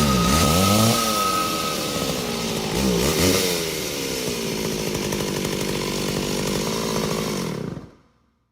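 Chainsaw running and revving, its pitch dipping and climbing again twice before settling into a steady run, then fading out quickly near the end.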